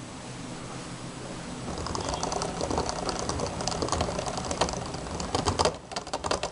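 A counterfeit L-Drago Destroy F:S Beyblade spinning down on a plastic stadium floor: a faint whir turns into a rapid, rattling scrape about two seconds in as the slowing top starts to wobble. Near the end the rattle breaks into separate louder clicks and knocks as the wobbling top's edge strikes the floor.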